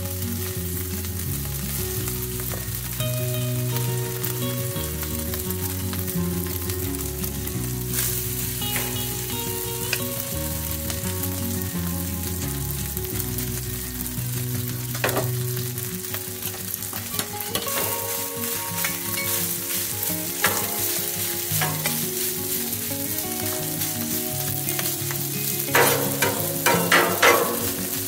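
Cooked rice frying on a hot flat-top griddle with a steady sizzle. A few scattered metal spatula clicks come through, and near the end a quick run of spatula chops and scrapes on the steel plate.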